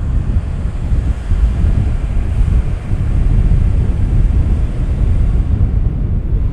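Wind buffeting the microphone outdoors, a steady low rumble with no distinct events.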